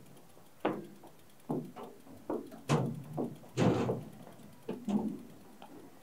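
Irregular knocks and thumps as a road bike is wheeled on foot across a plank footbridge: footsteps and the bike bumping over the boards, about a dozen hits, loudest a little past halfway.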